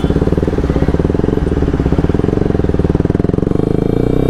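Bajaj Pulsar RS200's single-cylinder engine running steadily as the bike is ridden, its exhaust a fast, even pulse.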